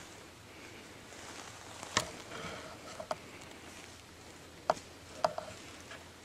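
A handful of sharp woody knocks and ticks, the loudest about two seconds in and others in quick pairs near three and five seconds, over a faint steady rustle of the woods.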